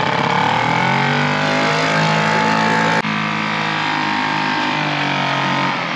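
British Seagull two-stroke outboard motor running at full throttle in its single forward gear just after starting, its pitch rising over the first second or so and then holding steady. There is a brief break about halfway through.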